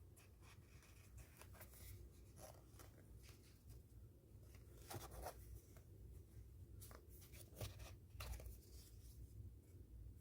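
Faint rustling and scattered light clicks, irregularly spaced, of small objects being handled close by, over a low hum.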